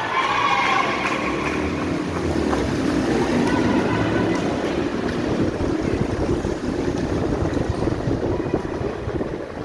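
Volleyball gym ambience: a team's shouted cheer tails off in the first second, then a steady rushing background noise with a low murmur of voices.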